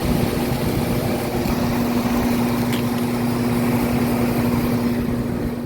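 Small central air conditioner condensing unit running, with a steady compressor hum under the outdoor fan's rushing noise. It starts to ease off near the end as the unit shuts off.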